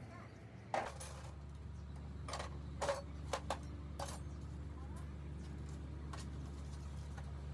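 A machine's steady low hum starts abruptly about a second in and keeps going, with several sharp clicks and clanks over it.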